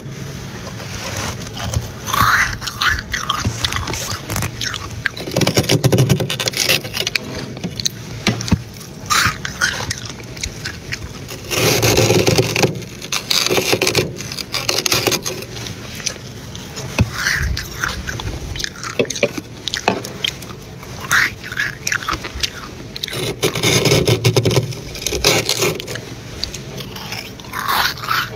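Metal spoon scraping and scooping thick, powdery freezer frost, crunchy scrapes coming one every few seconds with quieter rasping between.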